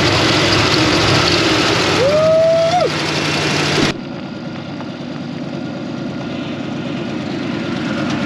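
Ford 351M V8 running at idle, heard close up in the engine bay, with a brief whistling tone about two seconds in. After a sudden change about four seconds in, the truck's engine is heard from outside, growing louder as it approaches.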